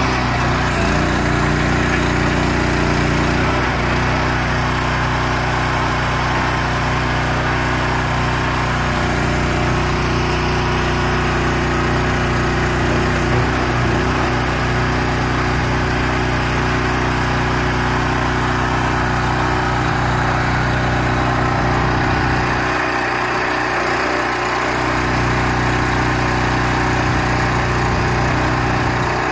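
Small engine on a self-propelled guardrail post driver running steadily at a constant speed, driving the machine's hydraulics. Its low hum drops away briefly about three-quarters of the way through; no post is being struck.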